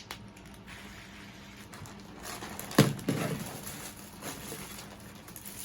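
Fidget toys and their plastic packaging being handled: a rustling in the middle, with one sharp knock or pop just under halfway in.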